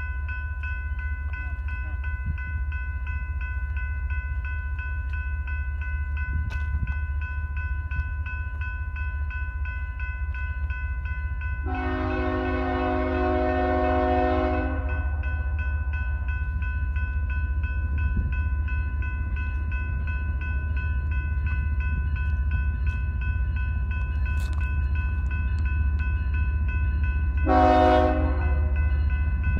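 Railroad grade-crossing bell ringing steadily while an approaching diesel locomotive sounds its horn: one long blast about twelve seconds in and a short one near the end, over a steady low rumble.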